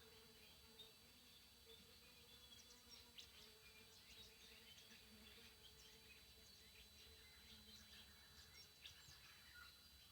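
Faint, steady high-pitched electronic squeal from a TriStar TS-MPPT-60 solar charge controller, with birds chirping throughout.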